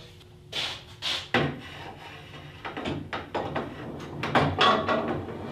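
Accu-Slice 2 aluminium rail and its sled carriage being set down and slid into place on a band saw's extension table: an uneven series of knocks, rubs and scrapes of metal on metal and wood, loudest about four seconds in.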